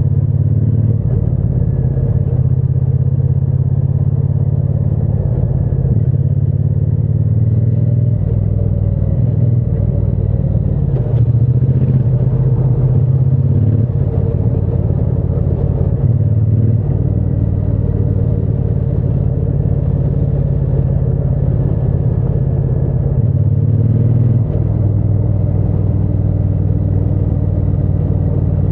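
Triumph Bonneville T120's 1200 cc parallel-twin engine and exhaust running steadily under way. Its low note shifts up or down in pitch several times.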